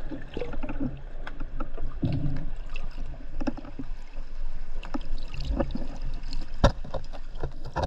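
Underwater bubbling and water movement with a string of scattered knocks and clicks as gloved hands tear at a tangle of old fishing net; one sharp click a little before the end is the loudest.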